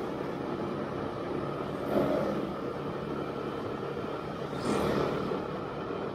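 Motorcycle riding along, its engine running steadily under road and wind noise, with two brief louder swells about two and five seconds in.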